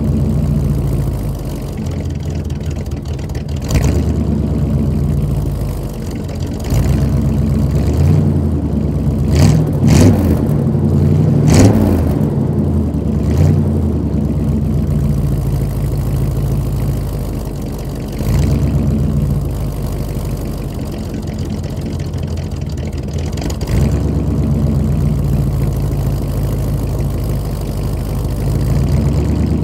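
1986 Chevrolet C-10 pickup's engine idling as it warms up after a cold start, with vapour coming from the tailpipe. About a third of the way in, the throttle is blipped several times in quick succession, each rev rising and falling back to idle. Single shorter blips follow later.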